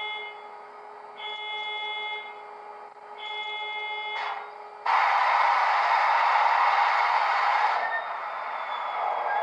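Sound from an ESU sound decoder in an SD70ACe model diesel locomotive, played through its small speaker. A bell-like alarm tone rings three times, about a second each and two seconds apart. About five seconds in, a loud rushing start-up noise cuts in, then eases to a steadier running sound with a faint rising whine.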